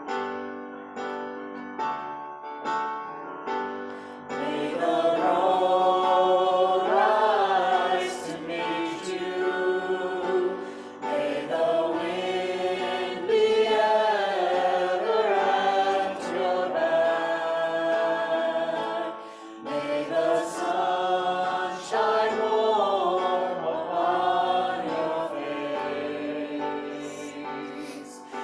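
Church choir singing a sacred song with accompaniment, entering about four seconds in after a brief instrumental lead-in of repeated notes.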